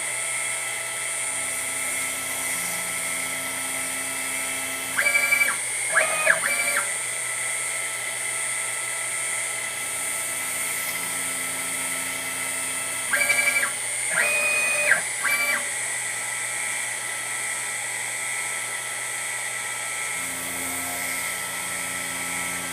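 CNC router spindle whining steadily at high pitch while the axis stepper motors hum on and off as the head moves. Three times the sound briefly changes and grows louder as the drill bit plunges into the part, drilling three holes.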